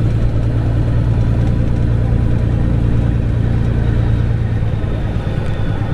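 Semi-truck diesel engine running steadily with a deep, even hum, most likely idling with the truck stopped.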